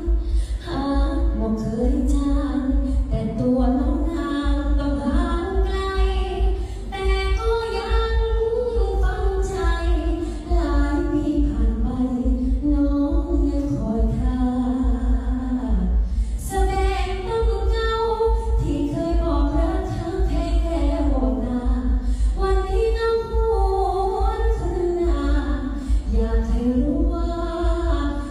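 A woman singing solo into a handheld microphone, a slow melody of long held notes that glide between pitches, over a steady low rumble.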